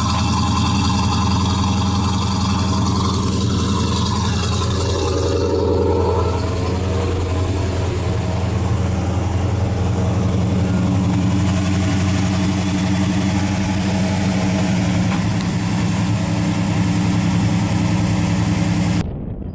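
1970 Pontiac GTO's V8 idling steadily through its dual exhaust, a deep, even rumble. It cuts off abruptly near the end.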